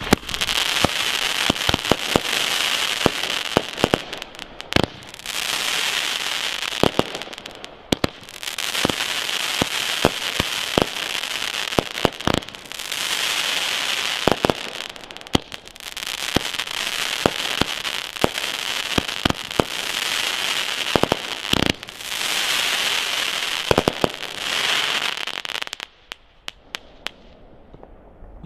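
Weco Dare Devil 31-shot, 25 mm firework battery firing: a run of sharp launch bangs with dense crackling from the shots' effects, coming in stretches of a few seconds each. The crackling stops about 26 seconds in, leaving a few last pops.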